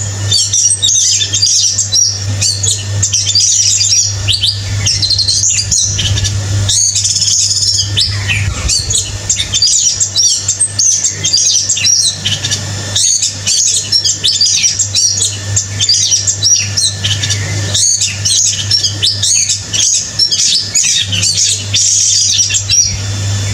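A small songbird singing continuously in rapid, high-pitched chirps and twittering runs, with only brief pauses. A steady low hum sits underneath.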